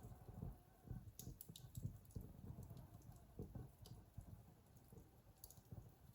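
Wood fire in a fireplace crackling faintly, with scattered sharp pops and a soft, uneven low rumble of the burning.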